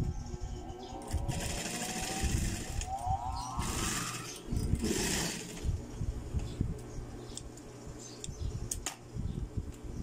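Industrial sewing machine stitching elastic onto stretch fabric, running in spurts with a rapid stitching patter. About a second in, its motor gives a whine that rises in pitch as it speeds up.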